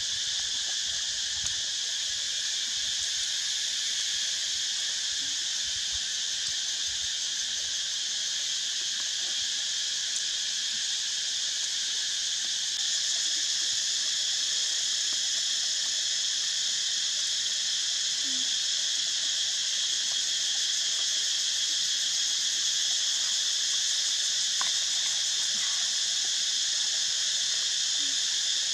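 Steady chorus of insects, a continuous shrill drone that never breaks and gets slightly louder about halfway through.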